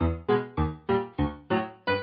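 Piano music playing evenly repeated struck chords, about three or four a second, each dying away before the next.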